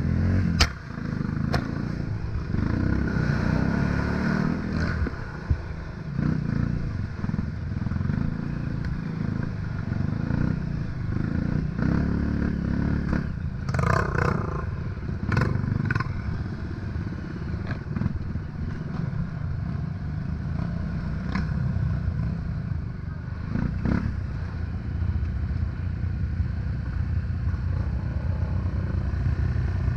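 Off-road dirt bike engine running at low, uneven revs while ridden over a rutted, muddy trail. Scattered knocks and clatter from the bike jolting over the ruts are heard throughout, the loudest cluster about fourteen seconds in.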